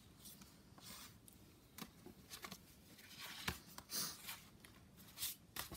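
Handmade paper greeting cards being handled and shuffled on a wooden tabletop: quiet rustling of card stock with scattered light taps and clicks, one sharper click about three and a half seconds in.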